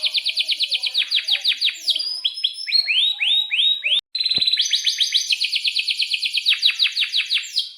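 Domestic canary singing in fast rolling trills of rapidly repeated high chirps, slowing to a few separate rising notes midway. About four seconds in there is a brief gap with a click, and then the fast trills resume.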